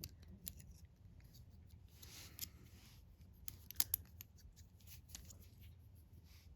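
Faint small metallic clicks and scrapes from a brass Master Lock 140 padlock and lock-picking tools being handled, with a sharper pair of clicks a little past the middle.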